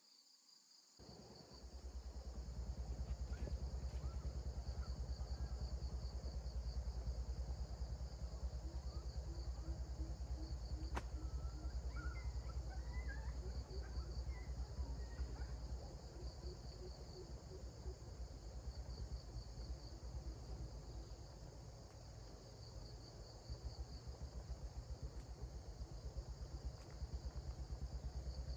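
Crickets chirping in repeated pulsing trains, heard over a steady low rumble that starts about a second in and is louder than the chirping.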